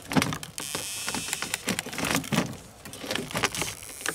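Shattered bulletproof glass and plastic laminate being handled and scraped, a knife blade digging at a bullet stuck in the plastic. A run of crackling clicks and scrapes, with a longer hissing scrape about a second in.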